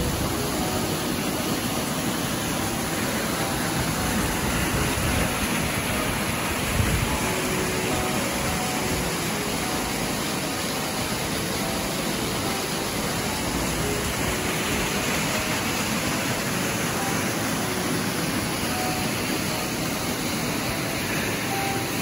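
Steady rushing and splashing of a small waterfall, a thin stream falling about 13 m over rock into a plunge pool. There is a brief low thump about seven seconds in.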